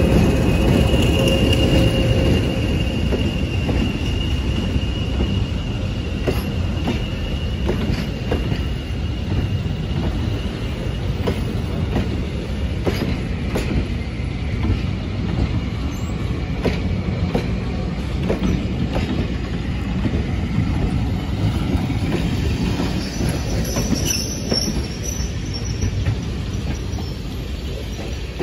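Diesel-hauled train running on the line with a steady low rumble. A thin squealing tone from the wheels fades out after about ten seconds, and irregular clicks of wheels over rail joints follow.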